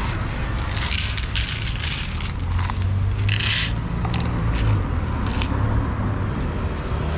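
Dry cat kibble rattling into a plastic bowl in one brief shower of hard pellets about three seconds in, amid scattered scrapes and clicks, over a steady low rumble.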